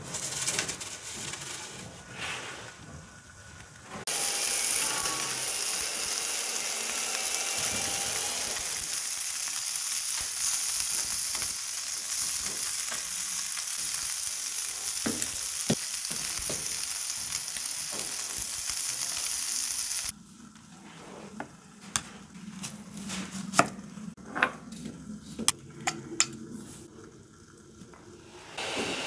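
A thick beef burger patty sizzling on a charcoal kamado grill grate. The steady hiss starts about four seconds in and cuts off suddenly some sixteen seconds later. The quieter stretches before and after hold scattered sharp clicks and taps.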